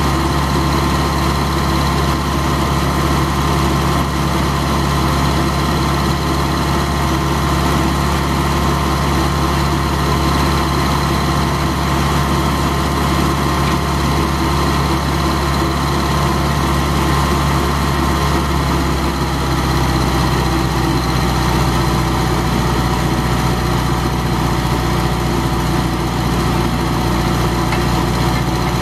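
Vermeer 630 stump grinder's gasoline engine running steadily. About two-thirds of the way through, its pitch drops slightly and then holds.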